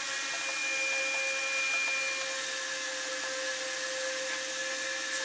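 Steady hissing noise with a few faint, steady held tones and no distinct strokes or knocks.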